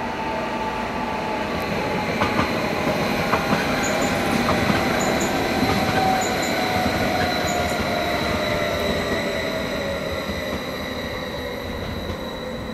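A train running past on the tracks, getting louder toward the middle and then easing off, with a slowly falling whine and a few sharp clicks from the wheels.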